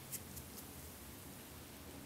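Vinegar-and-chemical bath fizzing around a rusty knife blade: a few small bubble-pop clicks in the first half second, then a faint hiss over a low steady hum as the fizz dies down.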